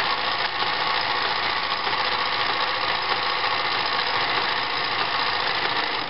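New Home model 900 (XL-II) sewing machine running steadily at high speed, stitching a decorative zigzag pattern through cloth. It stops abruptly at the very end.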